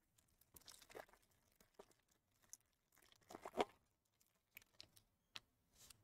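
Foil trading-card pack wrapper being torn open and crinkled, in short crackling bursts. The loudest comes about three and a half seconds in, and there are a few small crinkles near the end.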